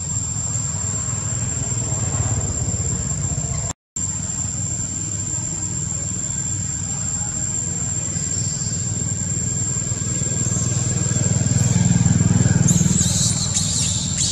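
Steady low rumble of a motorbike-type engine, swelling louder and then fading again about eleven to thirteen seconds in, as if passing by. Short high squeaks come near the end.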